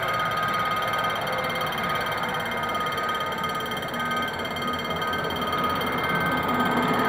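Level-crossing warning signal sounding: a steady electronic alarm tone, with a second tone pulsing on and off about once a second. Underneath, a diesel locomotive runs in toward the crossing, growing slightly louder.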